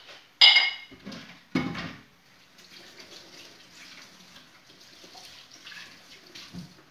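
A dish clinks sharply in a kitchen sink, a duller knock follows, then a tap runs water steadily for a few seconds, ending with a soft thump.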